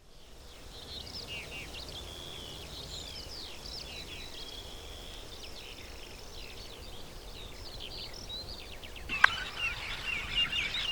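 Many small birds chirping and twittering together in quick, short calls. A single sharp click comes about nine seconds in, after which the chirping is louder and busier.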